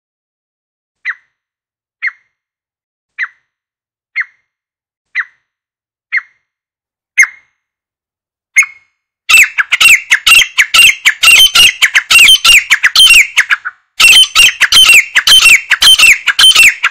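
Grey francolin calling: single short notes about once a second, growing louder, then a fast run of loud repeated notes about nine seconds in, a brief break, and a second run near the end.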